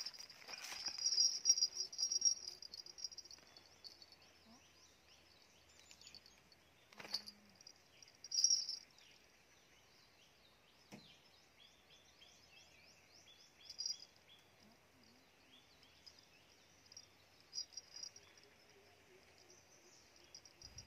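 Insects chirping in a steady high-pitched drone, louder at the start and again near the end, with short bird-like chirps over it and a couple of brief knocks from handling.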